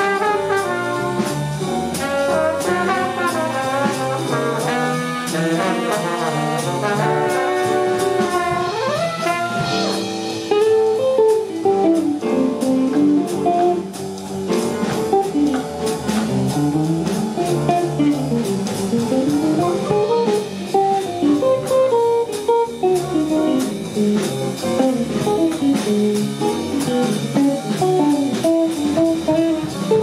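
Jazz octet playing: the horn section of saxophones, trumpet and trombone plays a harmonised passage, then about ten seconds in gives way to a guitar solo of quick running lines over double bass and drums.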